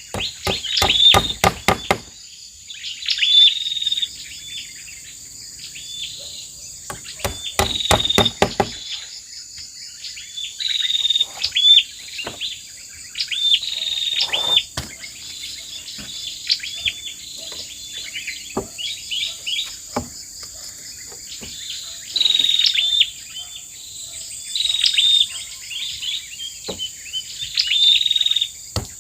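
Wild birds calling over and over in bursts of short, high chirping notes, with a steady high insect hiss underneath. A quick run of sharp knocks comes at the very start and again about seven seconds in, with a few single knocks scattered between.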